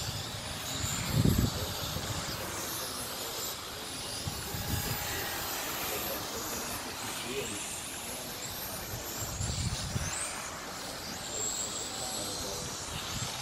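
Electric radio-controlled touring cars with 17.5-turn brushless motors running on an asphalt track, their motors giving faint high whines that rise and fall as the cars pass. Low rumbling bursts come about a second in and again around ten seconds.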